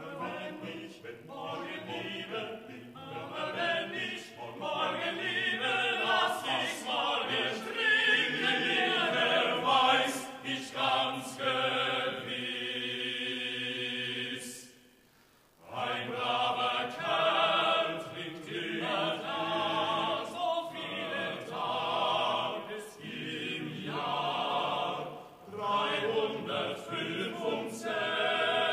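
Men's choir singing a drinking song a cappella, with a short break about halfway through before the voices come back in.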